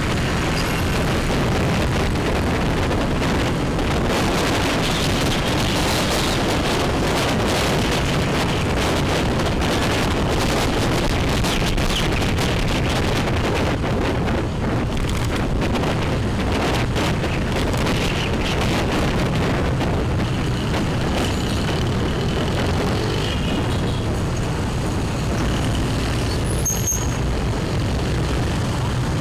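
Steady road noise while riding a motorbike through city traffic: engine hum and rushing air, with other motor traffic around.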